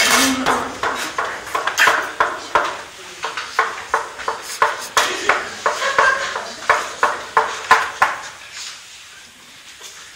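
A steady run of sharp knocks, about three a second, that stops about eight seconds in.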